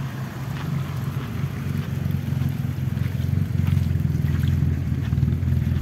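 1985 Honda Civic Wonder's inline-four engine running at a steady idle, its low hum growing a little louder in the second half.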